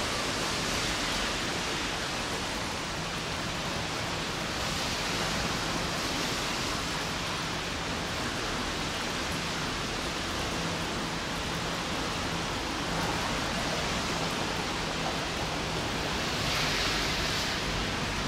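Steady hiss of light rain and outdoor background noise, swelling briefly near the end, with a faint low hum partway through.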